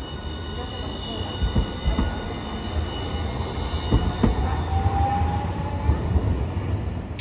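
Hiroden 1000-series Green Mover LEX low-floor tram passing slowly on street track, with a steady rumble and several wheel knocks over the rail joints. High steady whining tones run through it, and a brief rising whine comes about five seconds in.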